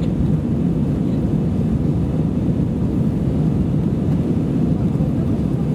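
Steady low rumble of an Airbus A320-214's CFM56 engines and airflow, heard inside the passenger cabin.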